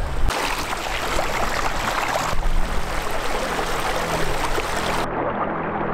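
Shallow river water rushing over rocks in a riffle, a steady noisy wash; about five seconds in it turns duller as the high end drops away.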